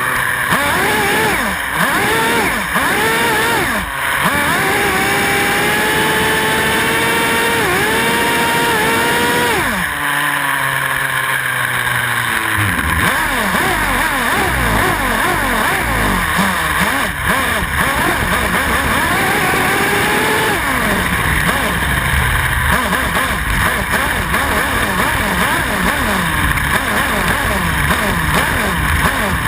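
Radio-controlled car's motor revving in short rises and falls, then held at a high, steady pitch with brief dips, dropping off about ten seconds in. After that it runs on rougher and noisier, its pitch swinging up and down quickly as the car drives.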